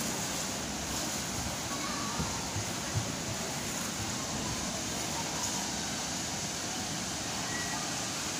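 Steady background din of a large indoor children's play area: an even wash of noise with faint distant children's voices and a few light knocks.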